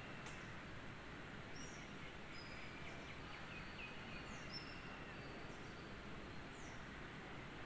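Faint steady outdoor background noise with a few faint, distant bird chirps and short high falling peeps now and then.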